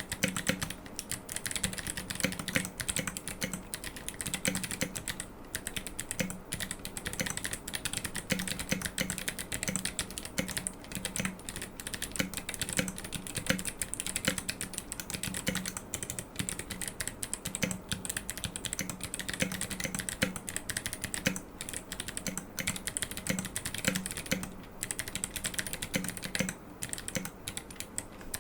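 Continuous fast typing on a GK64 aluminium mechanical keyboard fitted with Kailh Box Jade clicky switches and SA-profile keycaps: a dense, steady stream of sharp key clicks.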